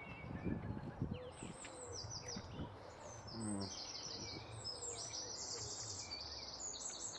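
Small birds chirping in the background: runs of short, high, rapidly repeated notes that keep coming through the whole stretch, over faint outdoor background noise.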